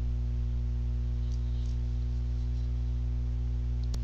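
Steady low electrical hum on the recording, like mains hum, with a single short click near the end.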